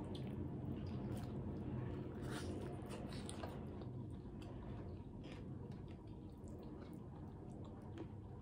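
A person chewing a mouthful of rice and dal with wet smacking clicks, and the soft squish of fingers mixing rice and dal in a steel plate, over a steady low hum.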